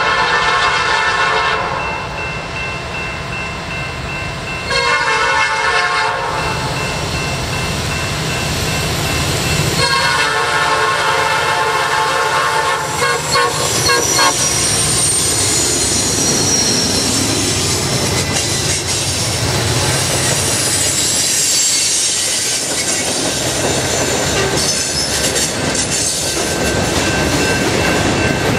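Norfolk Southern freight locomotive's five-chime Nathan P5 air horn sounding three blasts for a grade crossing, the last and longest as the locomotives pass close by. The train then rolls past with wheels clacking over the rail joints and high squealing from wheels on the curve, under the rumble of the freight cars.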